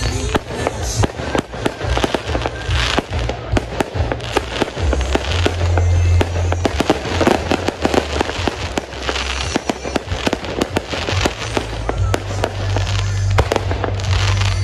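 Aerial fireworks bursting: a rapid, uneven run of sharp bangs and crackles.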